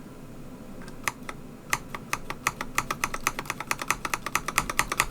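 Keystrokes on an Akko ACR87 mechanical keyboard: a few separate key presses, then from about two seconds in a quick run of presses at about seven a second, getting faster toward the end.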